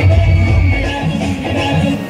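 Loud dance music from a song mash-up, with a heavy bass.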